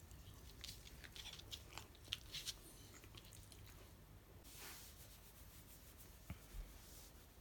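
Shiba Inu chewing quietly, a run of small sharp clicks in the first few seconds, then a soft brief rustle and two low knocks near the end.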